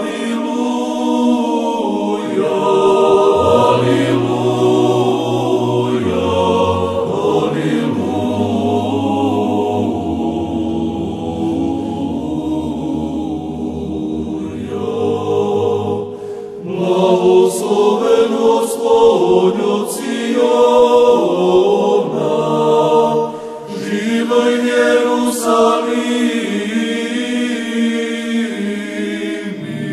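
Background music: a choir chanting, the voices moving over a low held drone during the first half, with a short break about halfway through.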